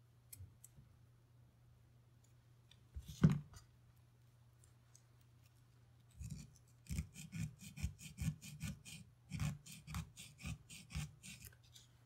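Hands working a Ruger 10/22 bolt and its small parts: one sharp knock about three seconds in, then a run of quick strokes at about three a second for some five seconds.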